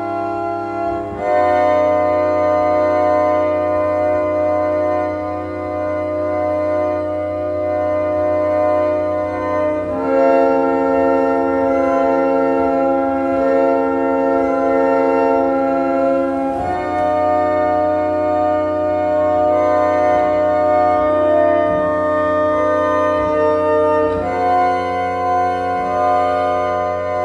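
Organ music: slow, sustained held chords, the harmony shifting every several seconds.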